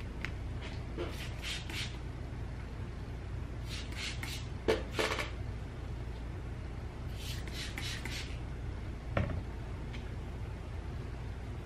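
Hands working wet, product-coated hair while coiling the curls: short bursts of rustling hiss in three groups, with a few soft knocks, over a steady low hum.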